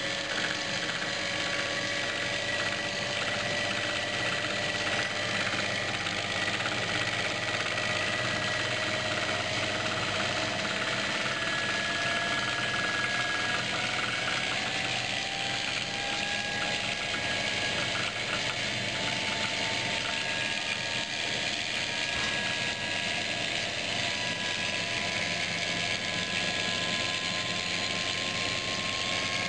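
Home-built generator rig running steadily, a mechanical whirr with a thin whine that climbs slowly in pitch as it spins up.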